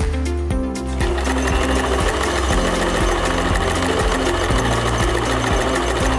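Domestic sewing machine running, stitching through thin synthetic fabric with a blunt needle that puckers and snags the fine cloth. It settles into steady running from about a second in, over background music.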